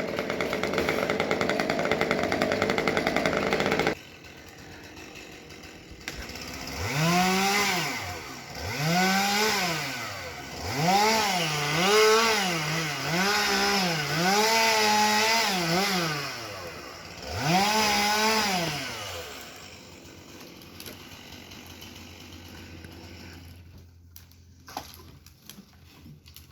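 Two-stroke chainsaw running at full throttle, cut off abruptly about four seconds in. After a short pause it is revved up and down six or seven times, each rev a rising and falling whine. It then drops back to a quieter level, with a few light knocks near the end.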